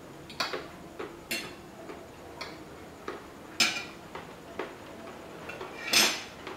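Metal spoon and fork clicking and scraping against a ceramic plate while eating, in irregular strikes about a second apart, the loudest near the end.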